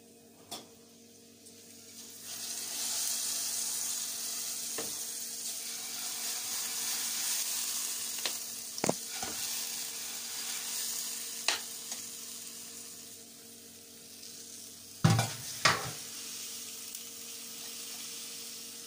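Hot tasha of garlic fried in ghee poured into a steel pot of simmering molokhia, setting off a loud sizzle that starts suddenly about two seconds in and eases off after several seconds. A metal ladle clinks against the pot now and then, with two sharper knocks near the end.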